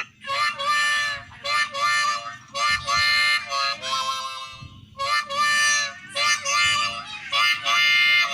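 An LG Magna phone ringtone playing: a short melody of held chords in brief phrases, which breaks off about halfway through and starts over.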